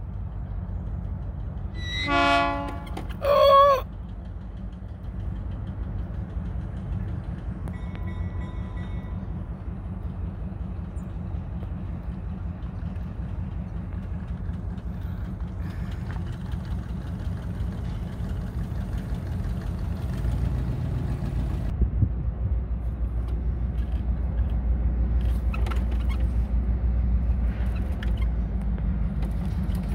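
Diesel locomotive's engine running with a steady low rumble as it creeps slowly forward, growing louder in the last third as it draws closer. A short horn toot sounds about two seconds in.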